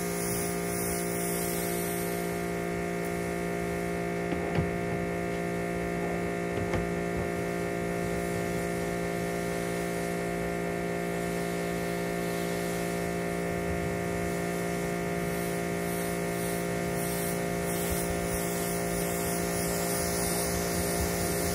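Electric pressure washer running with a steady hum while its wand sprays water onto a car, the spray hissing. Two small knocks come through, about four and a half and seven seconds in.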